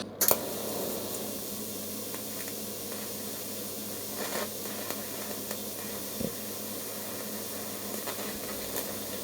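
Steady hiss of a 25-amp welding arc with a low hum underneath and a few faint clicks. Copper wire is being melted onto copper pipe, and the copper is burning rather than fusing into a weld.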